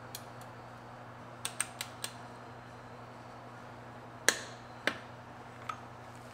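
Sharp metal clicks from a ratchet handle and bottom bracket tool as a thread-together bottom bracket is tightened to torque: a quick cluster of four about one and a half seconds in, a louder ringing click just after four seconds, then two fainter ones. A faint steady hum lies underneath.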